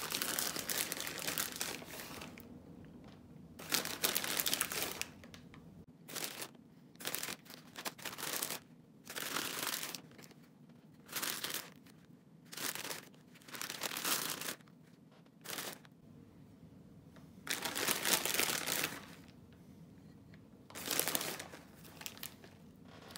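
Plastic bags of shredded cheese crinkling in a series of short bursts, with quiet gaps between them, as the cheese is shaken out and sprinkled by hand.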